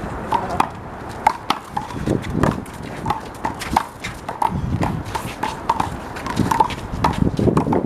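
Handball rally: a rubber handball slapped by hands and smacking off the wall and pavement in quick, irregular sharp hits, with short squeaks between them.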